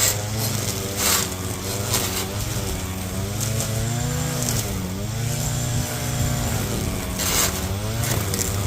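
Lawn mower engine running steadily under load, its pitch sagging and recovering about four and a half seconds in, with a few short hissing bursts.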